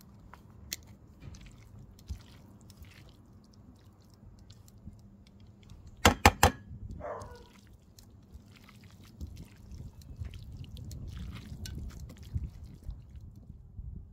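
Tongs tossing buttered tagliatelle and oyster mushrooms in a nonstick frying pan: soft squelching of the pasta with small clicks. Three sharp clicks come about six seconds in.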